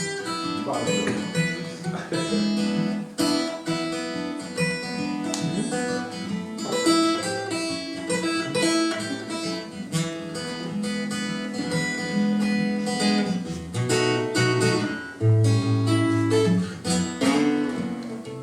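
Guitar playing a blues intro: picked notes and strums over held bass notes.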